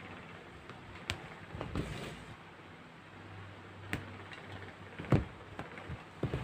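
Hands handling yarn and stitching it into a stretched canvas: soft rustling of yarn and fabric with a few sharp taps, the loudest about five seconds in.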